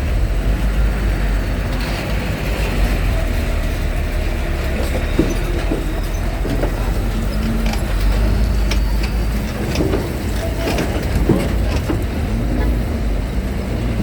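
Trucks and cars driving onto a ferry: a steady, loud low engine rumble with scattered knocks and clanks in the middle.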